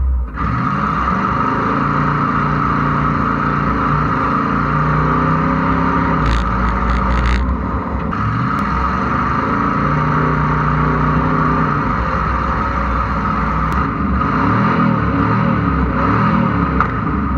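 Small-block Chevy V8 in a Kei truck running under way, its revs rising and falling as the truck drives, with wind and road noise.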